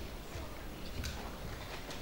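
Quiet hall room tone with a low hum and a few faint knocks, one about a second in and another near the end.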